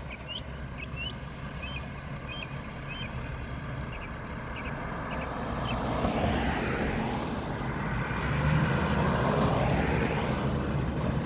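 Mack McNeilus front-loader garbage truck's diesel engine and tyres drawing near, the rumble and road noise building and loudest in the second half.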